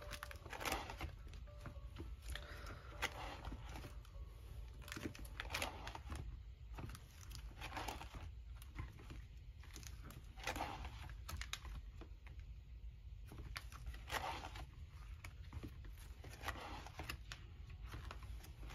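Clear plastic photocard pocket sleeves in a ring binder crinkling and rustling as pages are turned and handled. The rustles come in an irregular run of short swishes.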